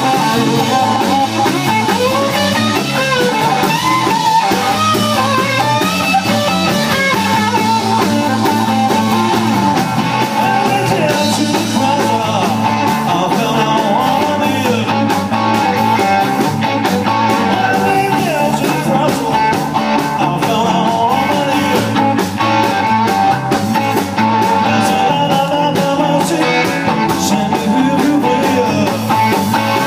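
Live blues-rock band playing: electric guitar, electric bass and drum kit, with a sung lead vocal over the band.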